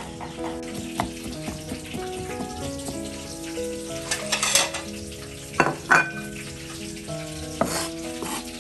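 Soft instrumental background music, with a cleaver mincing garlic on a chopping board: a few sharp knocks, two close together a little past halfway and another near the end, and brief scraping hiss from the blade.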